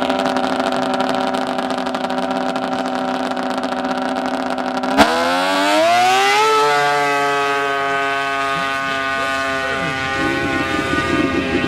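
Racing snowmobile engine running at a steady high pitch, then a sharp crack about five seconds in, after which the engine pitch climbs quickly as it accelerates and then holds, drifting slowly lower.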